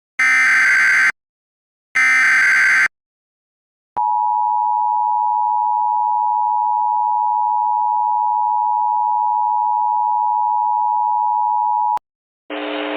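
Emergency Alert System tones: the last two of three SAME header data bursts, each a warbling screech about a second long with a second's gap between, then the two-tone EAS attention signal held steady for about eight seconds, announcing a tornado warning. Half a second before the end a hiss with a low hum begins.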